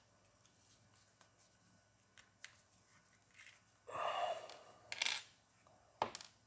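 Quiet handling of small metal shock parts and a seal pick: a few faint ticks, then a short breathy noise about four seconds in, followed by two sharp clicks.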